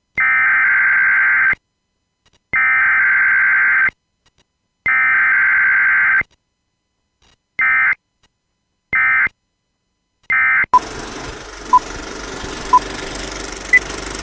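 Electronic beep tones, three long beeps of about a second and a half each and then three short ones. Then a crackling, hissing old-film noise with a sharp pop about once a second.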